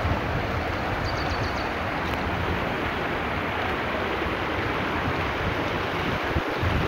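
Swollen river floodwater rushing steadily, with wind buffeting the microphone, which grows stronger near the end. A few faint high chirps come about a second in.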